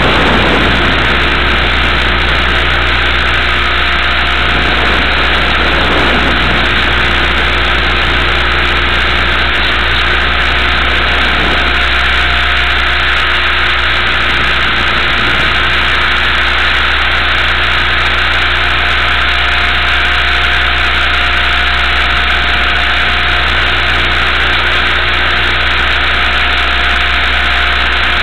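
Electric RC helicopter (Multiplex Funcopter) motor and rotor running steadily right beside the onboard camera's microphone, a loud constant drone with a steady hum and hiss.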